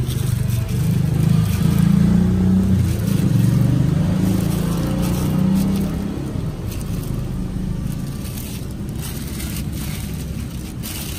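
Low engine rumble of motor traffic, loudest over the first half and then easing. Under it is the sizzle and crackle of churro dough frying in a wok of hot oil.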